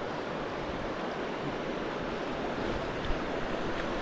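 Fast river current rushing steadily, an even hiss of moving water.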